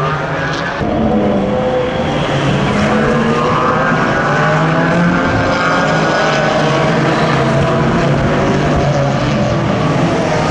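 Racing car engines running steadily on the circuit, several overlapping pitches drifting slowly up and down.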